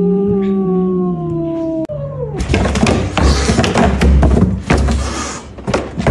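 A cat's long, low, drawn-out yowl, the kind of warning a cat gives another cat. Its pitch holds and then sinks slowly until it breaks off about two seconds in. After that comes a stretch of rustling and scuffling noise, broken by sharp knocks and clicks.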